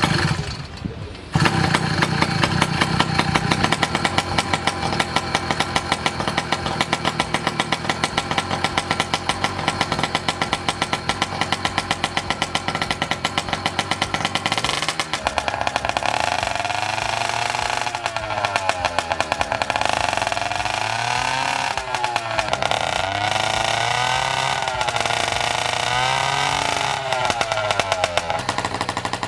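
Small engine of a miniature motorized bike starting up about a second in and running with a fast, even beat. From about halfway through, its speed rises and falls again and again as it is revved.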